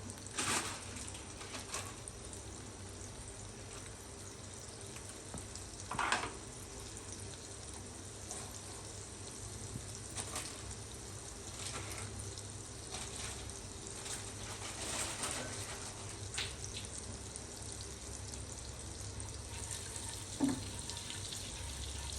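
Butter melting and sizzling softly in a hot pan, a steady faint hiss, with a few brief clicks.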